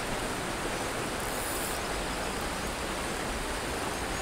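Steady rushing of a river's flowing current.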